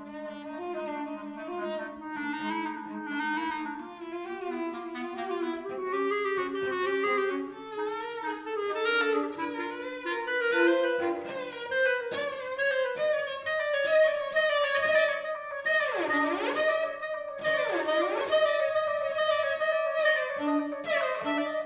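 Clarinet and cello playing a contemporary chamber duet together, a busy stream of bowed and sustained notes. About two-thirds of the way through come two swooping glides, down in pitch and back up.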